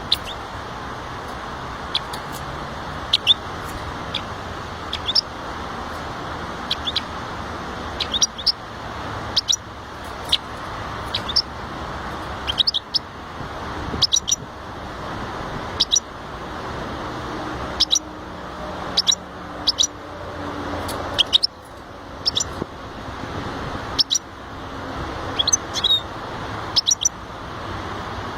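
Small finch giving short, sharp high chirps every second or two, some in quick pairs or triplets, over a steady low rumble of background noise.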